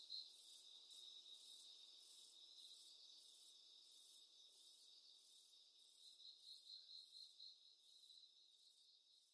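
Faint cricket chirping, a high pulsing trill of about four pulses a second, fading away, returning briefly about six seconds in, then cutting off.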